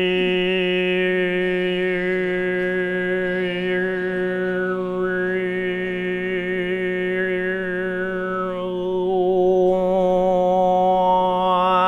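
A man's voice holding one long, steady low drone in throat (overtone) singing, the pitch unchanging while the stressed overtones above it shift. About nine seconds in, the tone brightens and gets a little louder.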